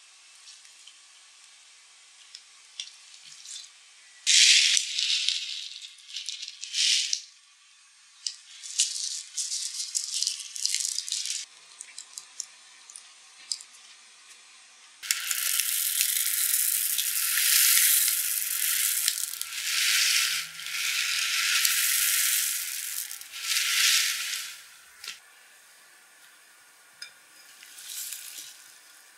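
Slime being squeezed and stretched in the hands gives short wet squishes and crackles. Then small white polystyrene foam beads are poured into a glass bowl of slime, making a loud rattling hiss that lasts about ten seconds with a few brief breaks.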